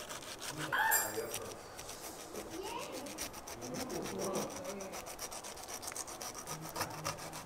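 Kitchen knife sawing through pineapple rind on a wooden chopping board: a rapid, even run of rasping strokes.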